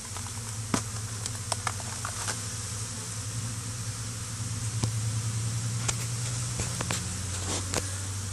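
Honey bees buzzing in a steady low hum around a disturbed stump. Scattered short knocks and rustles come from the stump being turned over.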